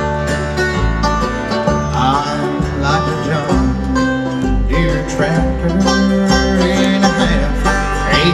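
A bluegrass band playing live: an instrumental break of picked string instruments over stepping bass notes.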